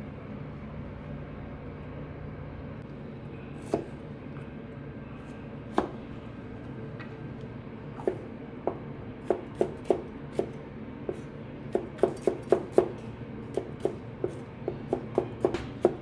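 Knife chopping on a cutting board: a few scattered chops at first, then quickening into a steady run of several chops a second, over a constant low background hum.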